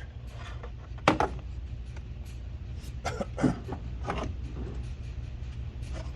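Clicks and knocks of plastic and metal door-latch parts being handled and worked apart inside a car door. There is a sharp knock about a second in and a few more clicks between three and four and a half seconds, over a steady low hum.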